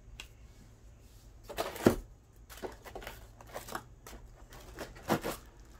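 Unboxing handling noise: plastic vacuum accessories and their packaging being picked up and moved. It makes a scattered series of clicks, rustles and crinkles, with one sharper knock about two seconds in.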